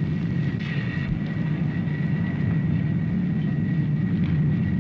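Steady low rumble of a coal-fired furnace in a boiler room, with a faint thin whine above it.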